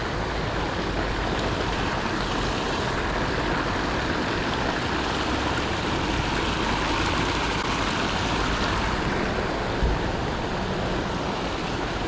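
Steady rush of fast-flowing creek water, with a brief low thump about ten seconds in.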